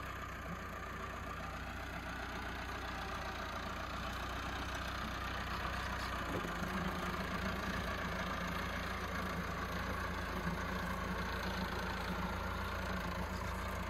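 Massey Ferguson 385 tractor's four-cylinder diesel engine running steadily while it pulls a garlic digger through the field; the engine note gets a little louder about six seconds in.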